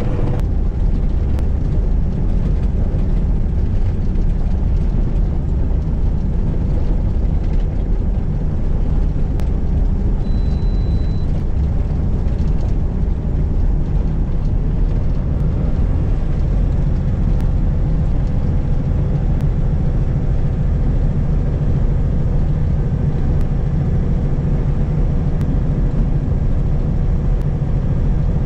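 Mack Granite snowplow truck running down the road, heard from inside its cab: a steady low diesel drone and road noise. About ten seconds in, a short high beep sounds once.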